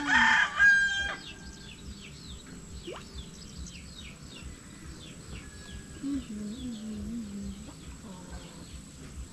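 A rooster crowing loudly in the first second, its call trailing off in a held note. Small birds chirp over and over in the background.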